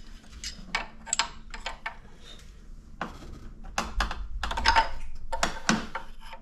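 Irregular metallic clicks and knocks of hand tools working on a BMW E46's VANOS unit, busiest in the second half.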